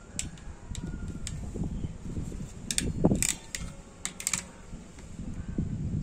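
Ratchet crimping tool clicking as it crimps a metal MC4 contact pin onto a solar cable: a string of sharp, irregularly spaced clicks, bunched about three to four and a half seconds in, over low rumbling.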